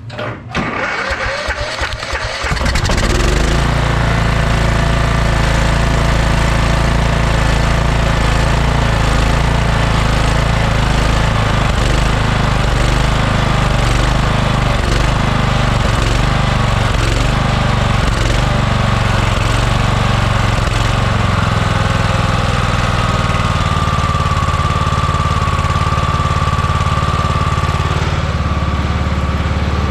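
Troy-Bilt riding lawn mower engine cranking on the starter and catching about two and a half seconds in, fed by gasoline squirted straight into the engine, then running steadily. A steady whine joins the engine sound near the end.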